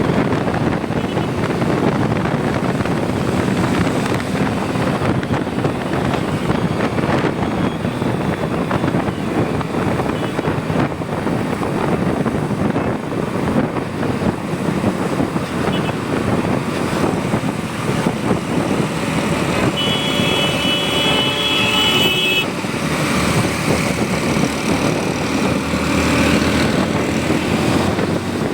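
Motorcycle ride heard from the bike: the engine runs steadily under a continuous rush of wind and road noise. About two-thirds through, a high steady tone sounds for two or three seconds.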